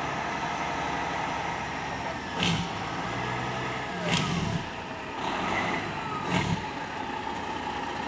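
Fire engine running as it approaches, with three short loud bursts about two seconds apart over the steady engine sound.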